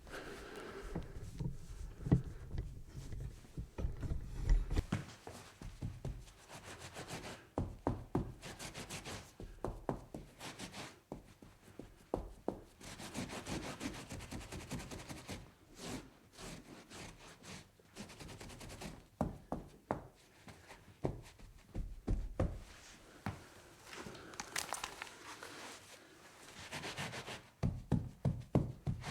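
Wiping and scrubbing a tabletop clean of spills: rubbing strokes with many short knocks and taps throughout.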